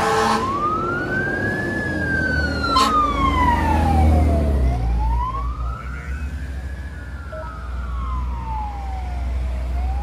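Fire truck siren on a slow wail, its pitch rising and falling about every four and a half seconds. A low rumble swells a few seconds in, and a single sharp click sounds about three seconds in.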